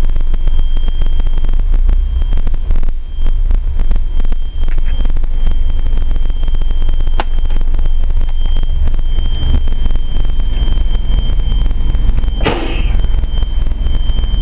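Renault R312 city bus's diesel engine running steadily just after start-up, a heavy low rumble heard from the driver's cab. A thin steady high tone runs over it, with a click about seven seconds in and a short hiss about twelve seconds in.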